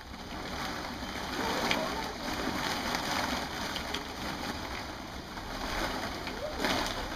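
Hollow plastic ball-pit balls shifting and clattering against each other in a steady rustle as a child squirms on her back through them.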